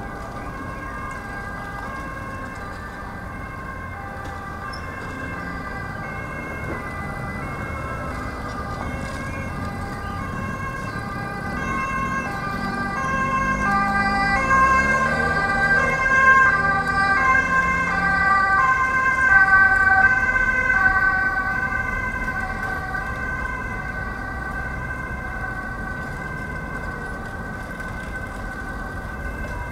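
Emergency vehicle's two-tone siren alternating between a high and a low note, swelling to its loudest about two-thirds of the way through and then fading as it passes and moves away, over a low traffic hum.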